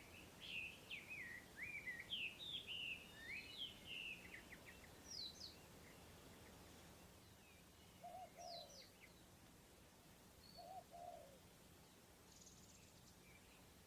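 Faint birdsong from several birds. Quick high chirps and trills come thickly in the first few seconds, then thin out to scattered calls. A couple of low, short two-note calls sound later on.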